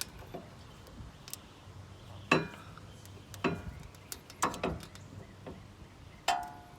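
Sharp metallic clicks and clinks of steel-backed brake pads and their spring clips being pushed into a car's front brake caliper bracket, about six in all, the loudest about two seconds in and one near the end ringing briefly.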